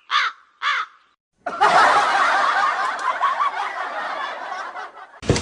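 Three short calls, then after a brief gap several people laughing together.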